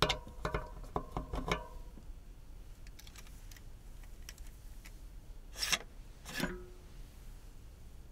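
A hex tool clicking and ringing against a bicycle's metal thru-axle as the axle is unscrewed: a quick run of metallic clicks over the first two seconds. Then come faint ticks and, about two-thirds of the way in, two short scrapes as the axle is drawn out of the hub and the front wheel comes free.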